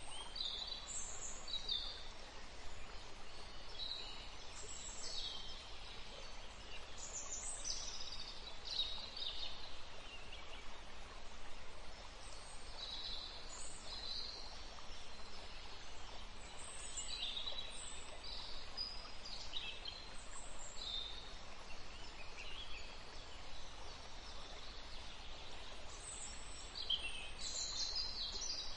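Birds chirping in short, repeated high calls over a steady background hiss.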